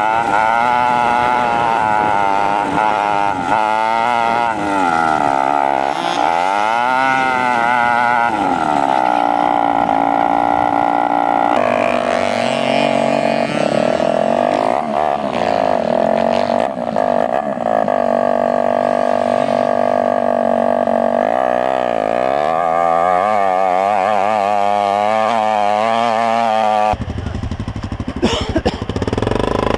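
Dirt bike engine revving up and down as it rides a rough dirt track, heard from on board the bike. Near the end the engine note gives way abruptly to a rougher, noisier sound with scattered knocks.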